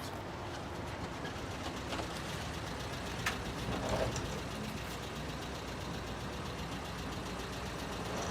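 Steady low rumbling background noise like a running engine or traffic, with a few faint clicks, the loudest a little over three seconds in.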